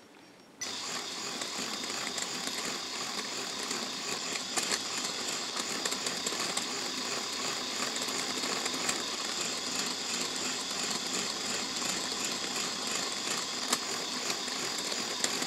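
A LEGO Technic mechanism driven by a small LEGO electric motor starts up about half a second in and runs steadily: the motor whirs and the plastic gears and linkages clatter, with small clicks here and there. It cuts off abruptly at the end.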